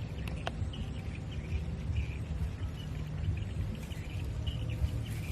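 Outdoor ambience: a steady low rumble with faint, short high chirps repeating throughout.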